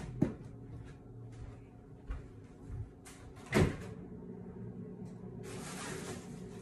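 Kitchen cupboard doors being opened and shut, with a few light knocks and one louder bang about three and a half seconds in, then a steady hiss near the end.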